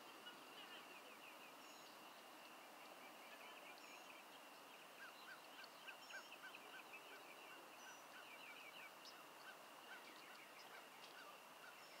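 Faint outdoor ambience of insects and birds: a steady high insect drone, with bird calls over it, including a run of short chirps at about three a second from roughly five to nine seconds in.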